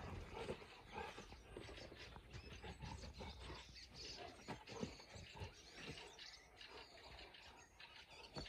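Faint scuffling of paws and low play growls from a Great Dane and a Saint Bernard wrestling.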